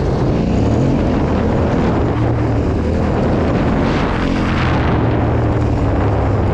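Yamaha Ténéré 700's parallel-twin engine running steadily at low revs as the bike is ridden slowly over a slippery trail, with a brief rush of noise about four seconds in.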